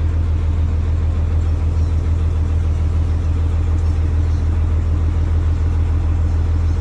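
Fire truck's engine idling: a steady low hum that does not change.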